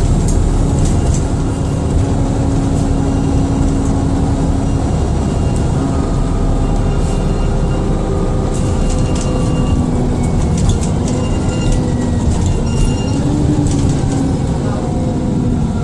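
Dennis Trident II / Enviro400 double-decker bus heard from on board while under way. The diesel engine drones steadily, its pitch rising and falling in the second half, under a faint high turbo whine and short interior rattles.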